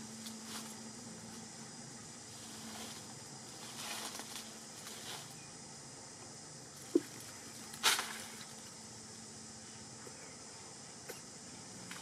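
Steady high insect drone in the background, with a few brief rustles and taps; a sharp pop about seven seconds in and a louder rustle just after it are the loudest sounds.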